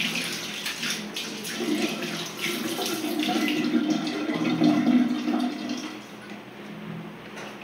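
Water running from a washbasin tap while hands are washed under it, with a low steady hum through the middle; the flow sounds louder from about one and a half seconds in and eases after about six seconds.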